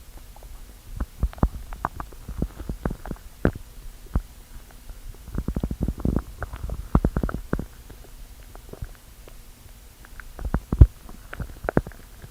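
A hungry stomach growling: quick, irregular gurgling pops over a low rumble. They come in clusters, thickest around the middle and again near the end, with one sharp, louder pop near the end.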